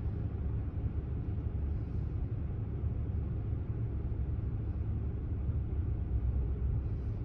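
Steady low rumble of a car's engine and tyres, heard from inside the cabin of the moving car.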